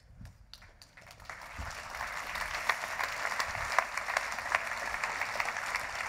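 Audience applause: a few scattered claps at first, swelling about a second and a half in into steady clapping from a large seated crowd.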